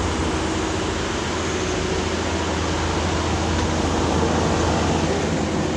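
Steady machine noise: an even rush with a low hum underneath, without distinct knocks or changes.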